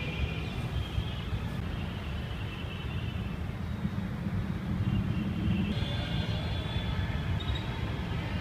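A low, steady rumble, with faint high tones above it.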